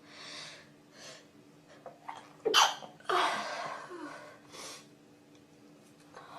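A person sneezing: a couple of quick breaths in, then one sharp, loud sneeze about two and a half seconds in, followed by a breathy exhale.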